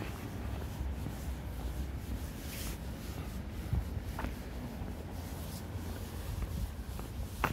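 Outdoor walking ambience: a low rumble of wind and handling on the microphone, with faint scuffing and rubbing and a few small clicks.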